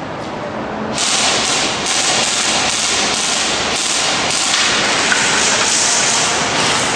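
Airsoft guns firing in rapid, overlapping volleys, a dense crackling rattle of shots that sets in about a second in and stops near the end.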